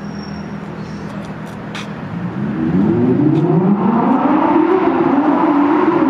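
Lamborghini Huracán EVO Spyder's naturally aspirated V10 accelerating: from about two seconds in, the engine note climbs in pitch and gets louder, then holds high.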